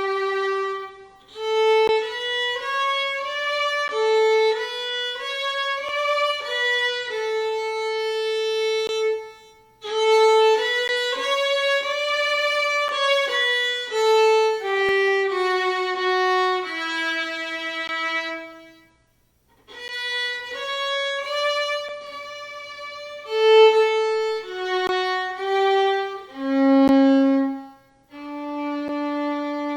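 Solo violin playing a slow melody, one note at a time, in phrases separated by short breaks.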